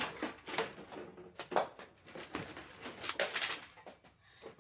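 Irregular knocks, clicks and rustles of objects being handled and moved about on a desk, as if someone is rummaging through things.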